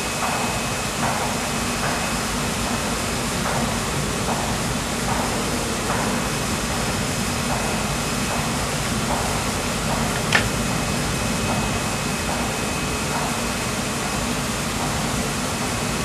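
Trailer-mounted shopping-basket washing machine running with a steady mechanical drone and rushing hiss, with light knocks now and then and one sharp click about ten seconds in.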